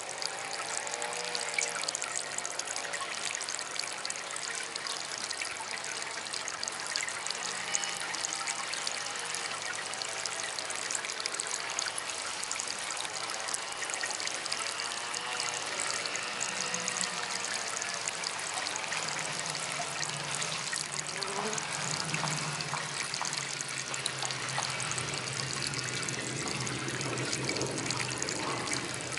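Water trickling steadily from a small DIY water fountain. A low, wavering hum grows stronger about two-thirds of the way through.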